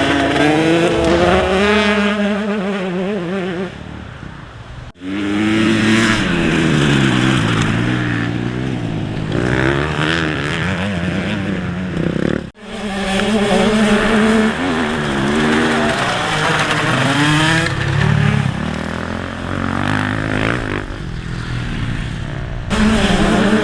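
Grasstrack motorcycle engine revving up and dropping back again and again, the note rising and falling with the throttle. The sound breaks off abruptly twice, about five and about twelve and a half seconds in.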